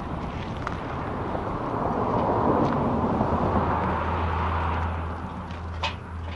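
A vehicle going by: a rushing noise that swells to a peak a couple of seconds in and then fades, with a low steady hum setting in past the middle. A light click or clack comes near the end.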